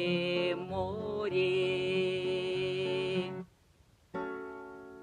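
Ending of a song's backing music: a sustained chord is held, with one note bending about a second in. It cuts off abruptly about three and a half seconds in. After a short silence, a final chord is struck and rings out, slowly fading.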